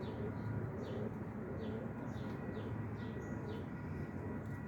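A bird chirping over and over in short, high chirps, two or three a second, over a steady low background noise.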